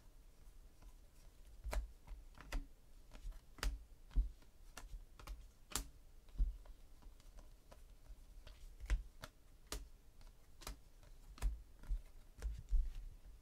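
Football trading cards being thumbed off a stack and dealt onto piles: irregular crisp clicks and light taps of card stock, about one or two a second.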